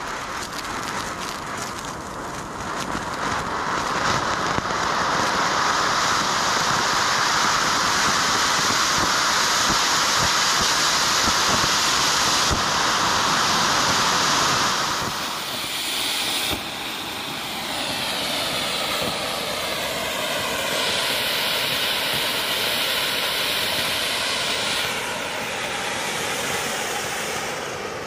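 Flower pot (anar) ground fountain firework gushing sparks with a steady, loud hiss, swelling a few seconds in. About halfway through the hiss turns lighter, with wavering tones in it, and it fades near the end.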